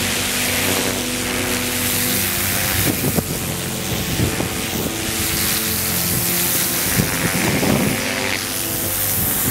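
Briggs & Stratton 2000 PSI electric pressure washer running, its high-pressure water jet hissing steadily as it blasts a weathered wooden timber. Background music plays underneath.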